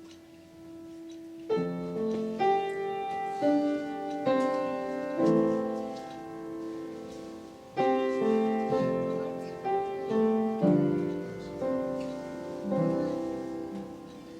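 Piano playing slow, sustained chords, a new chord struck every second or so, leading into a worship song.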